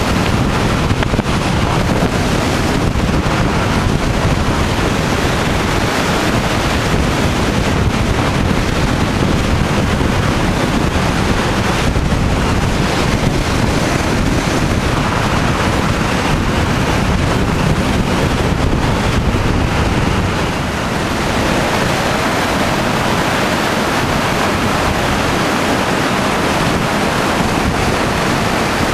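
Steady, loud rush of a car driving along a mountain road: wind buffeting the microphone over tyre and road noise.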